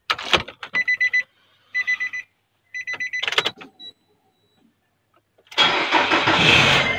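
Car sound effects: a few clicks and three short electronic beeps about a second apart, like a dashboard chime, then about five and a half seconds in a car engine starting up and running loudly.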